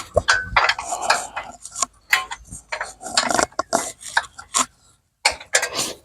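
Irregular metallic clicks and clinks of a hand wrench loosening a screw and a lawn tractor's mower-deck belt cover being worked free, with a short pause near the end.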